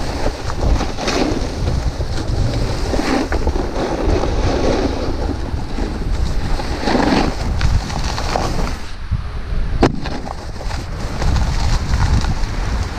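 Snowboard sliding and carving over snow, the edge scraping in swells through the turns, with wind rushing over the microphone. One sharp click near the end.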